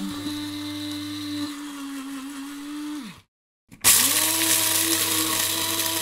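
Electric coffee grinder running steadily on coffee beans. About three seconds in it is switched off and its pitch falls as it spins down. After half a second of silence it starts again, louder and harsher.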